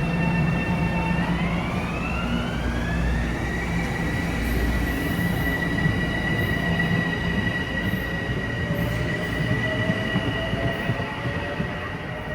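Metro-North M7 electric multiple unit pulling out and accelerating. Its traction motors and inverters whine in several steady tones that glide upward in pitch about a second in, then hold at a higher steady whine as the train picks up speed. A fainter whine rises slowly in the second half, over a low rumble of wheels on rail.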